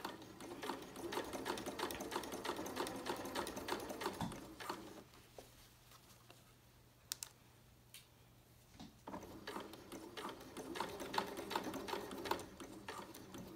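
Janome sewing machine stitching a basting seam along a zipper in two runs of rapid needle strokes. The first run lasts about five seconds. After a pause of a few seconds with a couple of single clicks, the second run goes for about four seconds.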